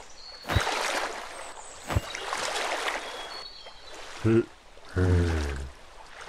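Cartoon water-splash sound effects, twice, each starting with a sharp slap and trailing off in a hiss of water, as a fish is caught in the net. Then two short wordless grunts in a low man's voice, the second longer.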